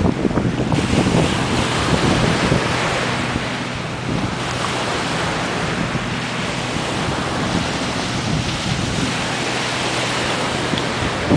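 Surf washing on a sandy beach, a steady hiss of breaking water, with wind buffeting the microphone, heaviest in the first second.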